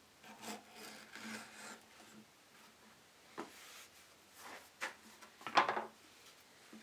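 A knife slicing through a sheet of leather on a wooden board in a few drawn strokes, followed by the stiff cut strip of leather scraping and rustling against the board as it is lifted away, the loudest scrape near the end.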